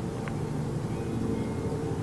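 Steady low droning hum with several held tones, like a distant aircraft engine but of unknown origin; it runs on without a break, and a faint short tick sounds about a third of a second in.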